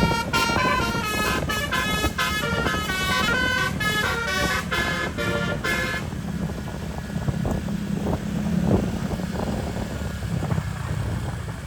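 Bus telolet horn with twelve roof-mounted Basuri trumpets playing a fast melody of quickly changing notes, which stops about six seconds in. Steady engine and road noise runs underneath.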